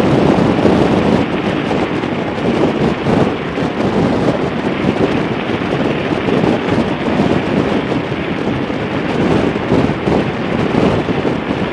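Wind rush buffeting the microphone of a motorcycle cruising at highway speed, a steady loud fluttering noise with the bike's running sounds blended in.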